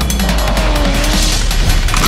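Energetic background music with a heavy low beat, with a speeding-car sound effect sweeping through a little over a second in.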